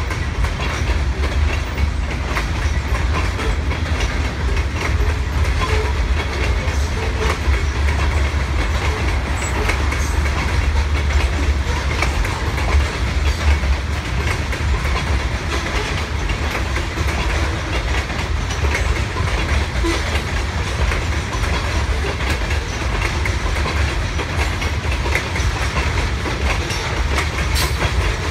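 Loaded covered hopper grain cars of a freight train rolling past, wheels clicking over rail joints above a steady low rumble.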